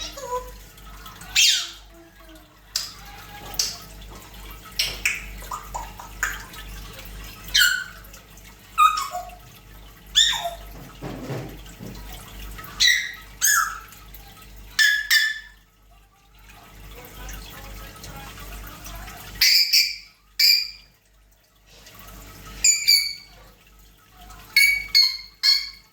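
African grey parrot making a string of short whistles and squawks, many sliding down in pitch, one every second or two, with a pause of a few seconds past the middle.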